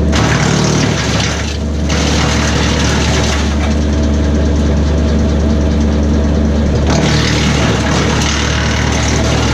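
Kubota B2601 compact tractor's three-cylinder diesel running steadily, driving a BECO 4-inch PTO wood chipper. The chipper's rushing noise of branches being chipped comes in waves: heavy through the first few seconds, gone for a few seconds in the middle, and back about seven seconds in.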